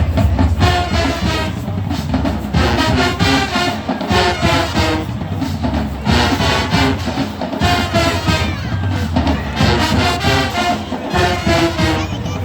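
High school marching band playing: brass with drums, a loud full ensemble.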